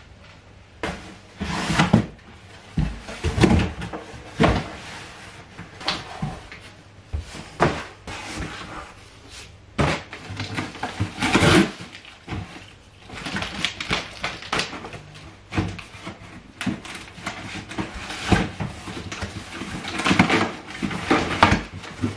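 Cardboard boxes being handled and moved: irregular thumps and knocks with scraping and rustling of cardboard and their contents.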